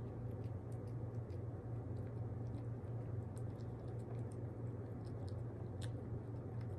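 A pet chewing wet food, with faint, irregular small clicks of teeth and tongue over a steady low hum.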